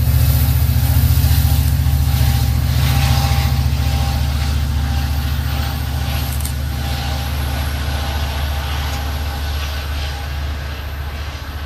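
Amtrak California double-deck passenger train passing and moving away: a steady low diesel locomotive drone with the rumble of wheels on the rails, slowly fading.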